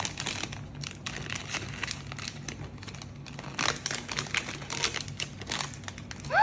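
Toy packaging being crinkled and torn open, a dense run of crackles.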